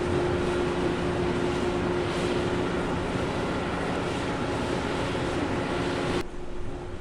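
Passenger boat's engine hum with a steady rushing noise, cutting off abruptly about six seconds in to a quieter, duller background.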